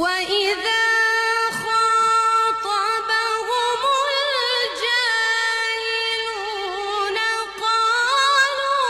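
A woman's voice reciting the Quran in the melodic tajwid style, holding long ornamented notes that waver and slide in pitch. It comes in abruptly at the very start, loud and unbroken.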